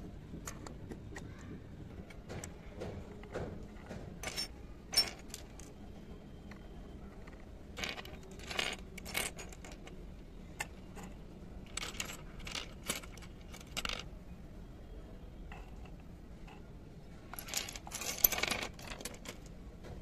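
Miniature dishes, cups, bowls and pots clicking and clinking as they are picked up and set down by hand, in scattered light taps with a denser clatter near the end.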